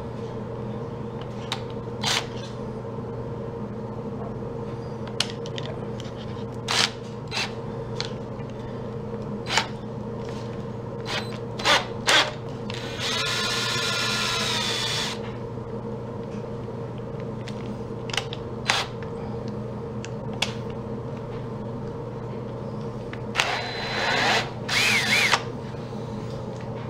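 A power drill fitted with a hole saw runs in two short bursts of about two seconds each, one near the middle and one near the end, amid scattered clicks and knocks of the tool being handled. A steady low hum sits underneath throughout.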